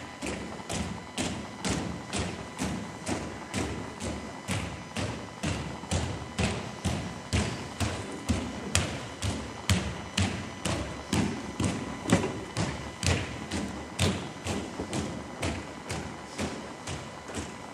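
Feet stepping in unison on a dance floor, a steady beat of sharp thuds about two a second.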